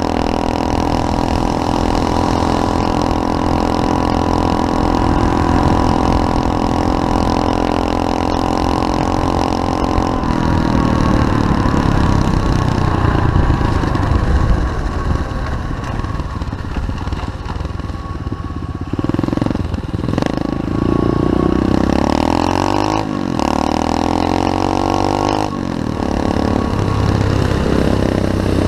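SSR 125cc pit bike's single-cylinder engine running at a steady pitch. It changes about ten seconds in, then through the second half revs up and down repeatedly, with short dips as the throttle is let off.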